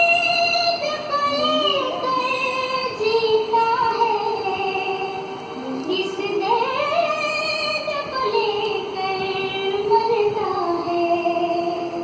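A song with a high sung vocal line and musical backing, playing from a television. The voice holds long notes that glide up and down, with a large rising swoop about halfway through.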